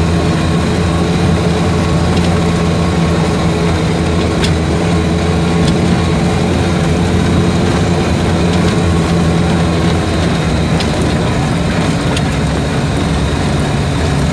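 Vehicle engine running at a steady pitch, heard from inside the cabin while driving, with a few faint clicks or rattles.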